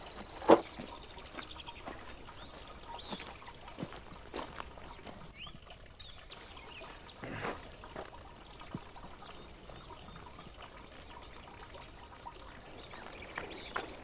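Quiet outdoor ambience: scattered footsteps and rustles on a dirt path, a sharp click about half a second in, and a few faint bird chirps.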